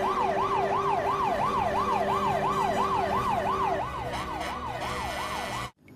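Electronic toy fire-truck siren wailing fast, its pitch sweeping up and down about three times a second, with a steady lower tone under it for the first four seconds. It gets a little quieter about four seconds in and cuts off just before the end.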